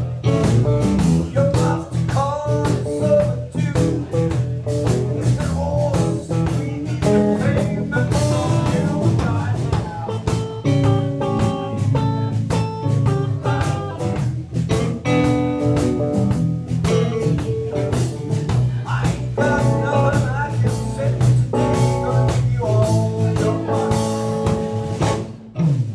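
A live band playing electric guitars and electric bass with a steady beat. The song ends shortly before the end.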